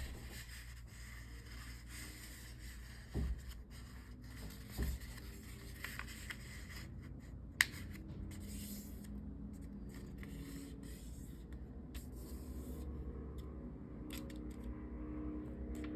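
Sheet of origami paper being folded into a triangle, with soft rubbing and scraping as the creases are pressed down. Two soft thumps a few seconds in and one sharp tick around the middle.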